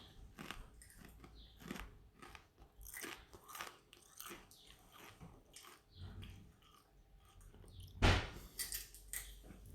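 Someone chewing potato chips close by: irregular crisp crunches, with one louder sharp crunch or knock about eight seconds in.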